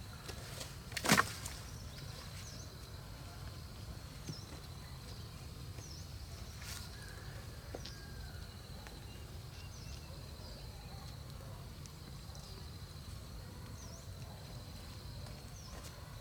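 Outdoor ambience: a steady low rumble with short high chirps every second or two over a faint steady high tone, and one sharp knock about a second in.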